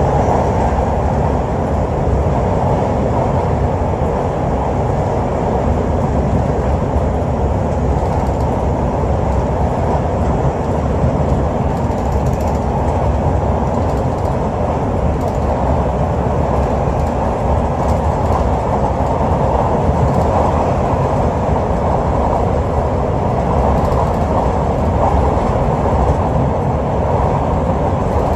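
Steady running noise heard inside a British Rail Class 365 electric multiple unit on the move: an even, low rumble of wheels on the track without pause.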